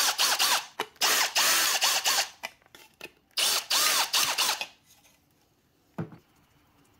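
Cordless drill with a step bit (Unibit) cutting and deburring a hole in the metal diode mounting plate of a battery charger's rectifier. The bit's cutting whine wavers through it. The drilling stops about two and a half seconds in, then runs in one more burst of about a second. Near the end there is a single knock as the drill is set down on the bench.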